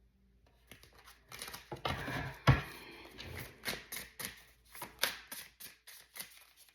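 Tarot cards being shuffled by hand: a rapid, irregular patter of card clicks and slaps, with one louder thump about two and a half seconds in.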